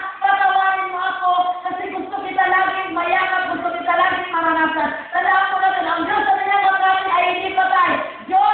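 A woman's voice singing through a PA in long held, slightly wavering notes, phrase after phrase with short breaks between them.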